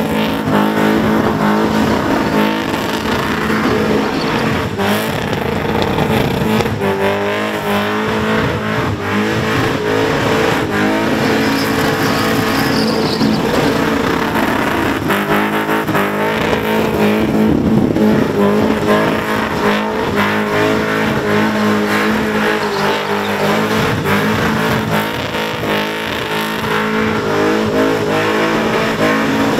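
Holden Commodore ute's engine held at high revs through a burnout, the rear tyres spinning and smoking on the track. The engine note is mostly steady, wavering up and down in places.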